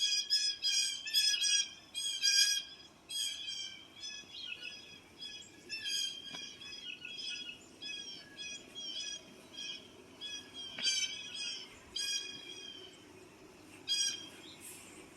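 Blue jays giving repeated harsh alarm calls, densest and loudest in the first few seconds, then more scattered. These are agitated mobbing calls, which the listener takes as a sign of a hawk, owl or eagle nearby.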